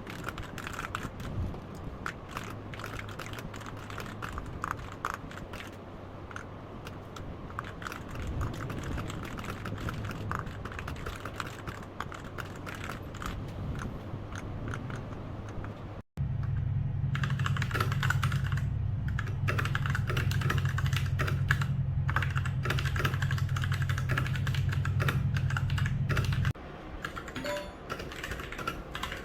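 Fast typing on a Royal Kludge RK61 mechanical keyboard: a rapid run of key clicks. About halfway there is a cut to louder typing over a steady low hum, which stops a few seconds before the end.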